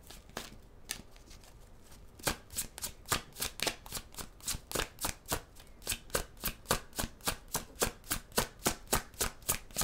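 A deck of tarot cards being shuffled overhand from hand to hand: packets of cards slapping down, a few soft taps at first, then a steady patter of crisp clicks at about three or four a second from about two seconds in.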